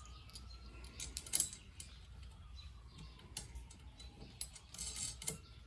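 Small stainless steel nuts and bolts clicking and clinking as they are handled and threaded by hand onto the flange of a still column. The clicks come irregularly, loudest about a second and a half in and again near the end.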